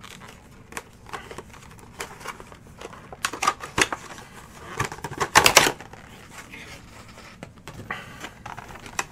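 Clear plastic blister packaging being handled and opened: scattered clicks and crinkles, loudest in two clusters about three and a half and five and a half seconds in.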